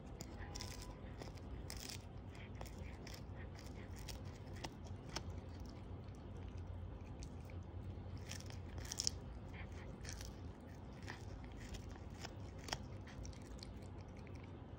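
Siamese cat biting and chewing a dried capelin: irregular small crunches and clicks of teeth on the fish, with a sharper crunch about nine seconds in and another near the end.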